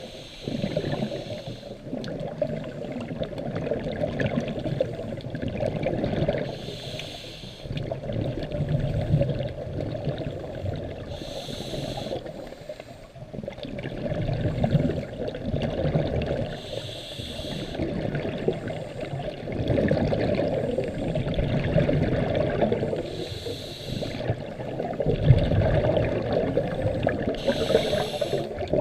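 Scuba diver breathing through a regulator underwater: a short hissing breath about every five to six seconds, with bubbling, churning water noise in between.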